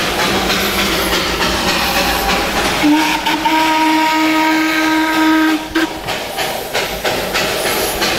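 Darjeeling Himalayan Railway B-class steam locomotive hissing as steam vents from it. About three seconds in its whistle sounds one long steady blast of about three seconds, then cuts off.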